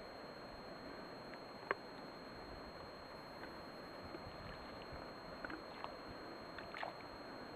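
Small waves lapping gently at a stony loch shore, with a faint steady hiss of wind. One sharp tick comes a little under two seconds in, and a few softer ticks follow later.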